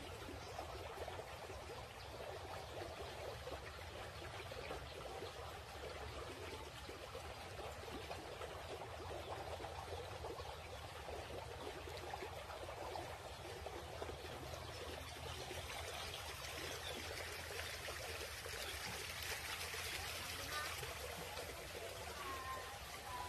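Water flowing steadily, a trickling stream, with a few faint short chirps near the end.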